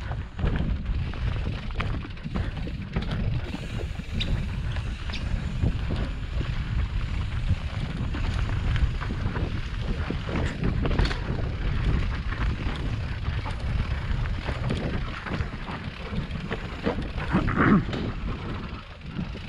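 Mountain bike running fast down a rough dirt singletrack: tyres rumbling over dirt and roots and the bike rattling over bumps, under heavy wind buffeting on the camera microphone. A louder clatter comes near the end.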